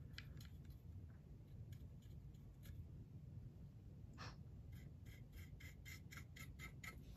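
Faint scratching and light taps of a small paintbrush working weathering powder onto a plastic model, ending in a quick run of light taps.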